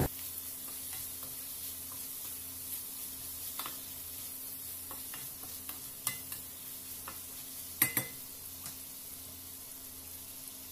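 Bell peppers, green chilies and onion sizzling in oil in a stainless steel frying pan while a wooden spatula stirs them, with scattered scrapes and taps of the spatula on the pan; the sharpest taps come a little under eight seconds in.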